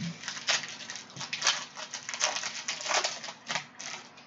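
An opened foil trading-card pack and its cards handled by hand: a run of quick, irregular crinkles and rustles.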